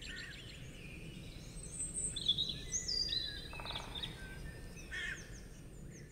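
Birds chirping and whistling, several short calls and a brief trill, over a faint background hiss.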